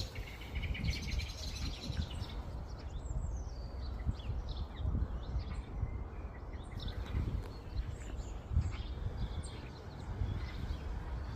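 Small wild garden birds chirping: many short, high, downward-sliding calls scattered throughout, over a steady low rumble.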